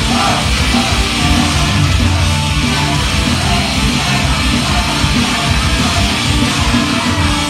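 Loud rock music with guitar and a driving beat, played over a club PA system during an instrumental stretch of a live performance; vocals drop out about the start.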